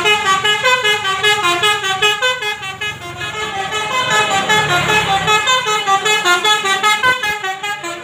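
Indonesian bus "basuri" telolet horn playing a fast melody of short notes that step up and down in pitch, several notes a second, with a brief break near the end.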